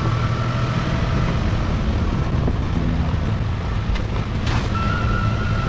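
Vehicle being driven off-road, with a steady engine hum and rumbling road noise.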